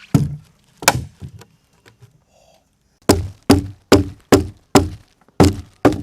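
Repeated hard blows of a tool chopping into wood, each a sharp thunk. Two strikes come first, then a pause, then a steady run of about two and a half blows a second.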